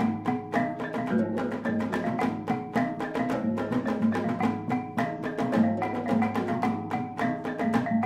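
Kulintang ensemble playing: a row of small tuned bossed gongs struck in a fast, busy melody over the deep ringing strokes of large hanging agung gongs.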